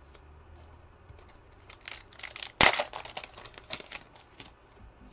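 Foil wrapper of a trading card pack crinkling in the hands and being torn open, with one sharp rip a little past halfway.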